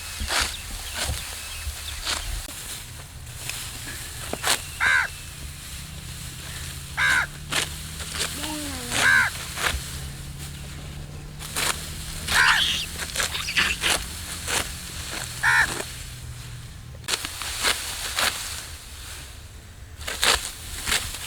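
Ripe rice stalks being cut by hand, a crisp cutting and rustling stroke repeating through the field, with crows cawing about five times.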